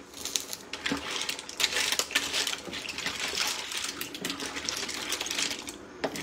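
Mussel and clam shells clattering against a steel pan as they are stirred with a wooden spatula: a dense run of rapid clicks and rattles, easing off briefly near the end.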